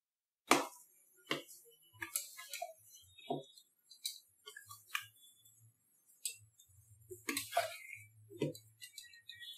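Metal spoon stirring dry powdered sugar into roasted gram flour in a metal pan, with irregular clinks and scrapes as the spoon knocks against the pan's side and bottom.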